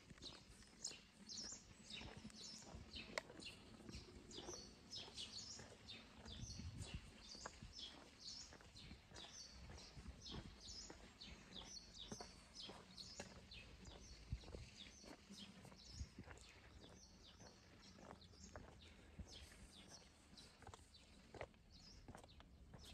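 Small birds chirping repeatedly, faint, with occasional quiet footsteps on stone paving.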